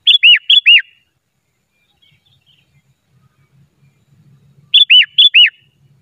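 Sooty-headed bulbul singing two short, loud phrases about four and a half seconds apart, one at the start and one near the end. Each phrase has four clear whistled notes, short high notes alternating with notes that swoop down steeply in pitch.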